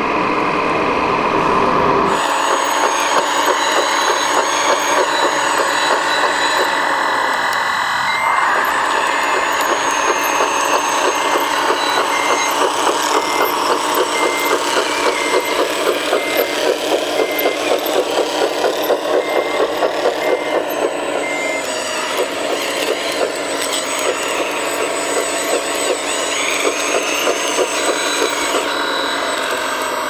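Engine sound of a 1/14-scale RC tracked loader, heard thin with no bass, like a small speaker, with a fast regular chug. A reversing beeper sounds about once a second for much of the time, and a whine rises and falls. For about the first two seconds a fuller RC truck sound is heard, which cuts off suddenly.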